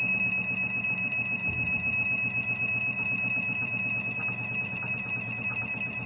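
2M2 Tank II Pro CNC key cutting machine's motors driving the decoder probe over the original key to read its cut depths and positions: a steady high-pitched whine over a fast, even buzzing pulse.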